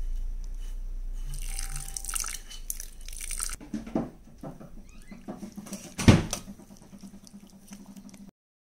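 Water poured into a stainless steel bowl of raw chicken and spices, then a metal spoon stirring and knocking against the bowl. The loudest knock comes about six seconds in.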